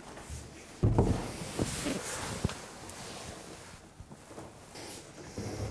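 A pair of leather dress shoes set down on a wooden workbench. There is a thump about a second in, then a few light knocks and handling rustles.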